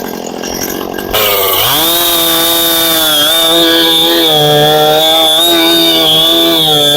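Two-stroke chainsaw running low, then throttled up sharply about a second in and held at high revs, its pitch dipping and recovering as it cuts into a small log.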